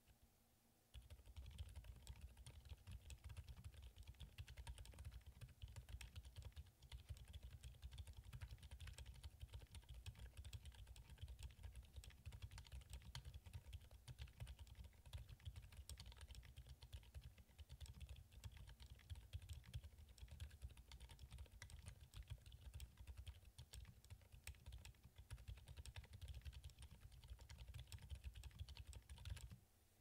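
Quiet, steady fast typing on a Minivan 40% mechanical keyboard built plateless with lubed, filmed Gazzew Boba U4 silent tactile switches on 55 g springs: a dense run of soft keystrokes, mostly low in pitch. The typing starts about a second in and stops just before the end.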